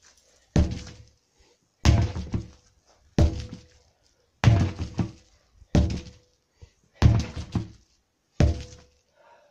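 Sledgehammer striking a stack of rubber tyres: seven heavy thuds, about one every 1.3 seconds, each fading out briefly.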